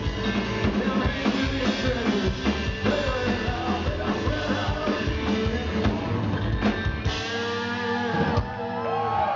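Live band of electric guitar, bass guitar and drum kit playing. About seven seconds in, the beat stops on a cymbal crash and a chord left ringing.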